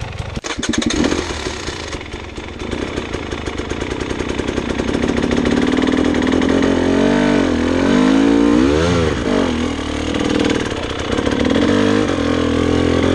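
Dirt bike engine running, with the revs rising and falling a few times near the middle. There are a few sharp knocks about half a second in.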